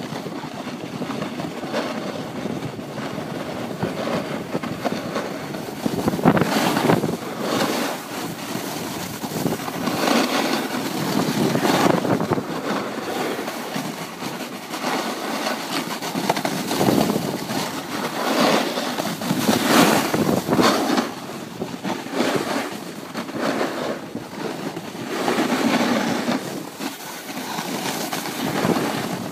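Snowboard sliding and carving over packed snow, a scraping rush that swells and fades every few seconds with the turns, mixed with wind buffeting the microphone.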